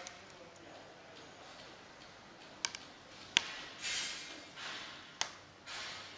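Stiff curtain fabric rustling in short swishes as it is folded into pleats by hand, with a few sharp clicks, the loudest about halfway through.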